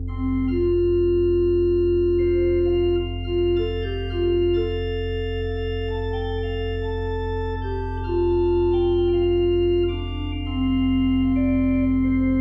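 Organ playing a slow melody of long held notes over steady sustained bass notes.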